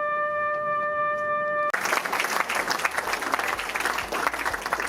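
A trumpet holds one long final note, which stops about a second and a half in as an audience breaks into applause.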